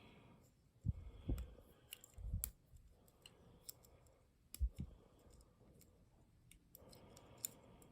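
Faint, irregular small metallic clicks and a few soft knocks from a pick wire and tensioner working the levers inside a Secure 4-lever padlock during picking.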